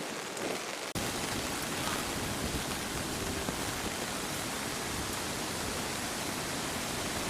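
A steady, even rushing noise like falling or spraying water, starting abruptly about a second in.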